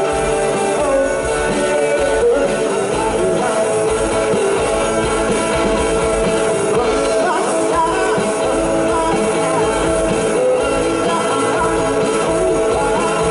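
Live rock band playing loudly and steadily: electric guitars and bass guitar over a drum kit, heard through the stage PA.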